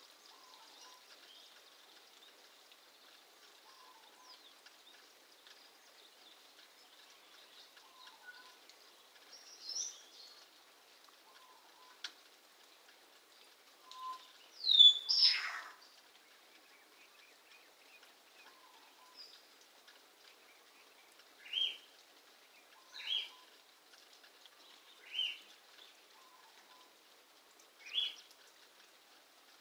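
A pet bird calling: one loud screech about halfway through that slides down in pitch, then four short, sharp calls a second or two apart near the end, with a smaller call before them.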